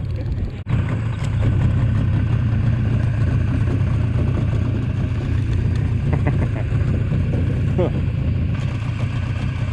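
An engine running steadily with a low, even drone, which cuts out briefly just after the start.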